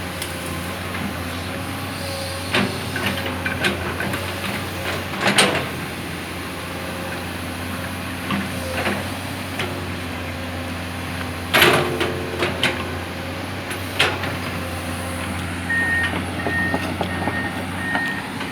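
Komatsu PC200-8 excavator's six-cylinder diesel engine running at a steady idle, with several sharp metallic knocks and clanks over it and a short run of repeated high beeps near the end.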